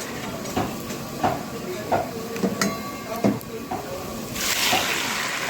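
A metal utensil knocking against a karahi about five times, then a loud burst of sizzling from the hot oil in the karahi about four seconds in.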